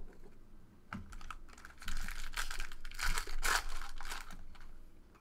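A foil trading-card pack being opened by hand: the wrapper crinkles and the stack of cards inside rustles and clicks as it is pulled out. There is a dense run of crackling from about a second in until near the end.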